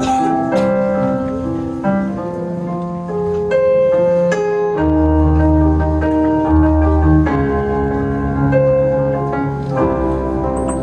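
Instrumental keyboard music: held piano-like notes and chords, with a deep bass line coming in about five seconds in.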